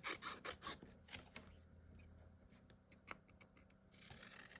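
Faint rustling and light scratchy clicks of a sheet of vinyl being handled, mostly in the first second and a half, then only a few soft ticks.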